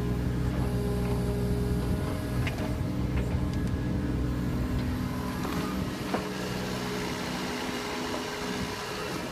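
Kubota U27-4 mini excavator's three-cylinder diesel engine running steadily under hydraulic work as the boom and bucket dig and the machine slews, with a few short sharp clicks over it; the engine eases off slightly near the end.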